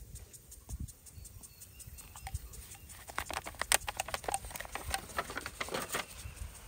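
Thin plastic nursery pot crackling as it is squeezed and a lobelia root ball is worked out of it, a dense run of crackles from about three seconds in. Before that, a few soft thumps of hands pressing potting soil.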